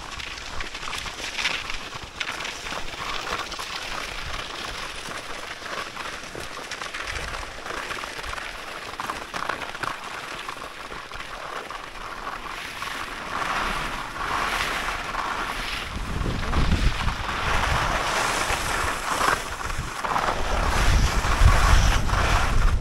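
Skis hissing and scraping over spring corn snow in a series of swells, with wind buffeting the microphone. The wind rumble grows louder over the last several seconds.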